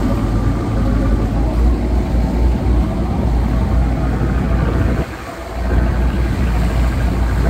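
Boat engine running under way, with heavy low rumble and wind buffeting the microphone; the rumble drops briefly about five seconds in.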